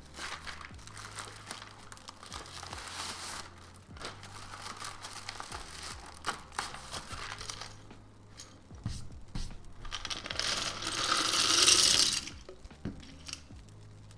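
Plastic packaging being handled and opened, crinkling and rustling, with scattered light clicks. The loudest stretch of rustling or tearing comes about ten seconds in and lasts about two seconds.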